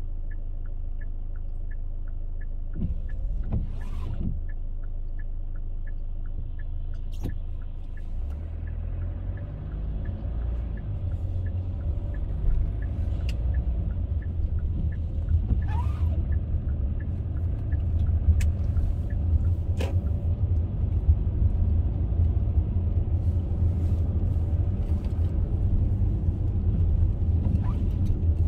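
A car being driven, its low road and engine rumble growing louder about a third of the way in as it picks up speed. Over the first part there is a regular light ticking, about two to three a second, that stops about a third of the way in.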